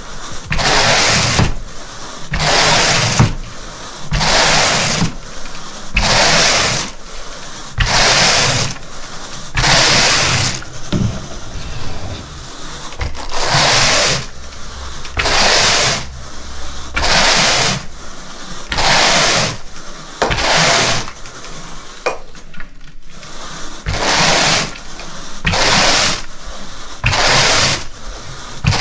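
Carpet grooming rake dragged back and forth through the carpet pile in steady strokes, a scratchy brushing about once a second, alternating louder and softer strokes, with a brief pause about two-thirds of the way through.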